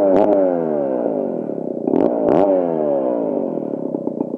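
Two-stroke chainsaw engine, just started, revved twice: each time the pitch jumps up and slides back down, then it settles into an uneven idle near the end.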